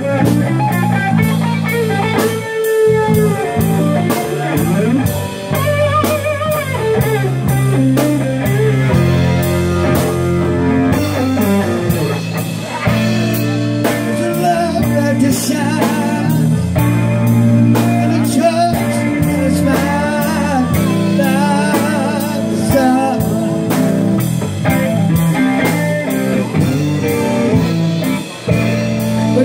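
Live blues-rock band playing: electric guitar lead over bass guitar and a drum kit keeping a steady beat.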